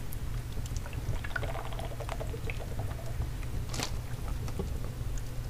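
Faint crackling and popping of a wood fire in a fireplace, scattered small snaps over a steady low hum.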